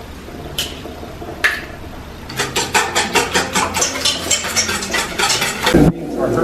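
Kitchen food-prep sounds: two light clicks, then about three seconds of rapid, evenly repeated knocks of a utensil, around six a second, ending in a low thud.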